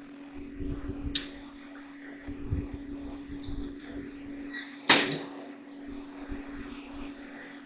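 Handling noises from taking apart a Shark vacuum cleaner's plastic housing: scattered clicks, taps and knocks of plastic parts, with one sharp knock about a second in and a louder one about five seconds in, over a steady low hum.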